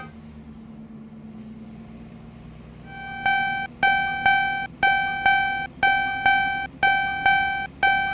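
A single bell-like musical note struck about once a second, each strike sharp and then fading, starting about three seconds in over a faint low hum.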